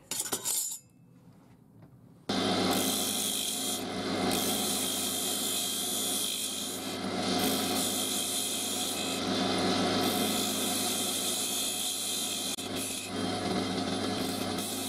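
Wood lathe running with a steady hum while a gouge cuts across the face of a spinning wooden blank, giving a continuous scraping hiss with a few short dips. It starts abruptly about two seconds in.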